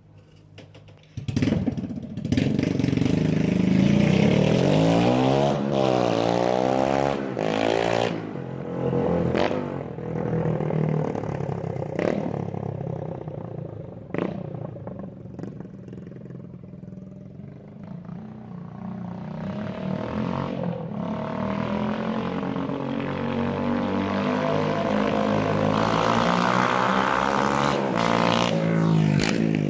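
Beta RR 125 four-stroke single-cylinder motorcycle engine with its exhaust removed, running open-piped. It comes in about a second in, then revs up and down repeatedly as the bike is ridden, with several sharp pops along the way; it fades somewhat in the middle and grows louder again toward the end.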